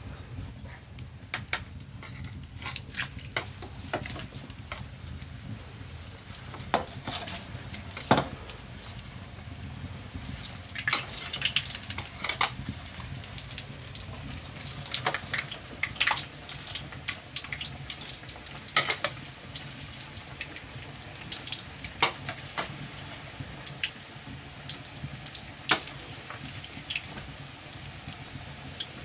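Khajoor dough pieces deep-frying in oil in a wok over a wood fire, a steady sizzle, with sharp clinks and scrapes of a metal ladle against the wok now and then.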